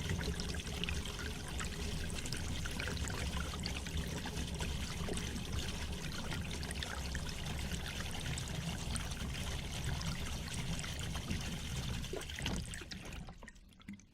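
Water flowing steadily with a pouring, trickling rush, fading out near the end.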